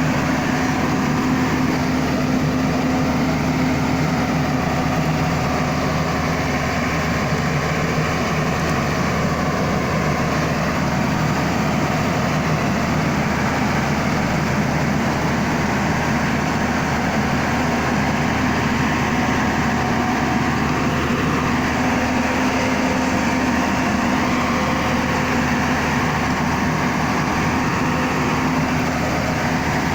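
A vehicle engine running steadily at constant speed: an even drone with a steady hum that holds unchanged throughout.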